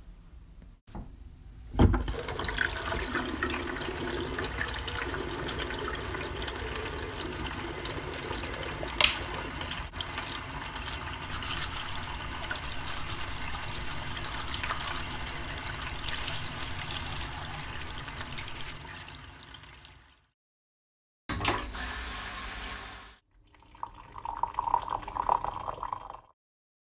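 Water running from a bathroom tap into the washbasin for most of the stretch, steady, with a sharp knock as it starts and another partway through. Near the end, after a break, come a short loud hiss and then a brief higher-pitched sound.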